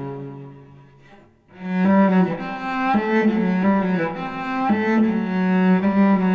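Instrumental break in a slow Greek song: a melody of long held notes over low sustained bass notes. The music dies away about a second in, then comes back a moment later and carries on.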